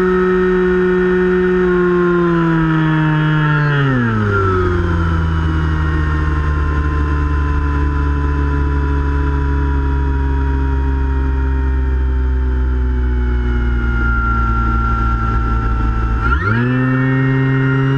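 Electric motor and propeller of a Finwing Penguin RC plane, heard from its onboard camera over wind rush. The steady whine drops steeply in pitch about four seconds in as the throttle comes back, holds low, then climbs sharply near the end as the throttle opens up.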